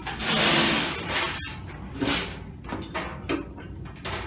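Sheet-metal welding cart being handled and moved with the welder on it. A rattling rush of noise lasts about a second and a half and ends in a sharp knock, then a few lighter knocks and rattles follow.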